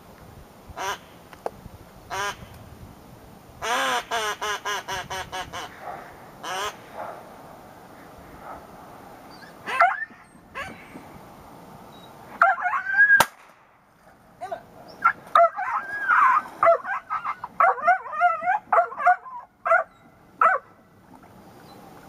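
Duck quacking: a quick run of quacks a few seconds in, then more scattered calls through the second half.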